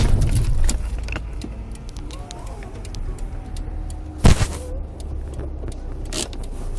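Steady low rumble of a vehicle on the road, with a sharp knock about four seconds in and a lighter one about six seconds in.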